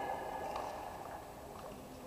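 Faint sports-hall background: a voice trails off at the start, then low hall murmur with a few faint knocks.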